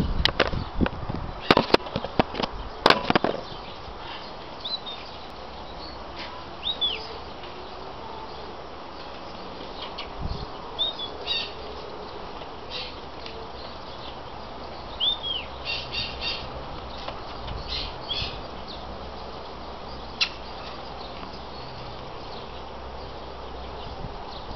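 Loud knocks and rubbing of fingers on the camera in the first few seconds, then scattered short high chirps and quick falling calls from small birds over a steady outdoor background.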